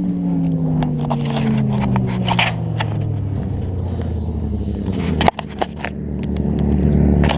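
Motorcycle engine note slowly falling in pitch, over scraping and clicking as the crashed bike and its camera are moved about. There is a sharp knock about five seconds in, then a steady engine hum grows louder.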